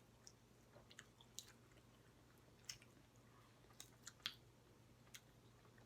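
Faint chewing of a sauced chicken leg: scattered soft, wet mouth clicks at irregular intervals, close to near silence.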